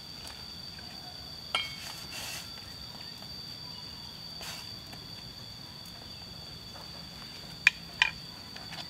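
Steady high-pitched insect drone of the forest, with sharp clinks of metal cookware being handled: one about a second and a half in, and two louder ones close together near the end.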